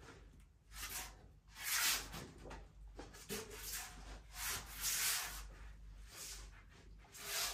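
Hands sliding and smoothing a pasted length of wallpaper against the wall, a quiet, uneven series of swishing rubs. The twisted length is being pushed back into level on its wet paste.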